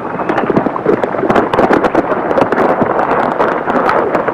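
Several horses galloping: a fast, dense clatter of hoofbeats.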